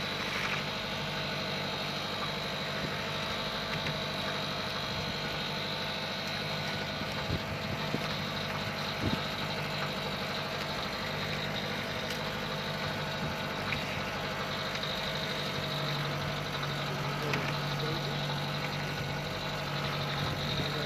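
A boat's engine idling steadily: an even, unchanging hum with a thin high whine over it.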